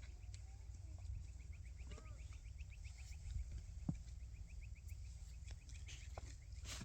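Outdoor ambience: a steady low wind rumble on the microphone, with a fast, even run of high ticking calls, about eight a second, and a few short calls and clicks.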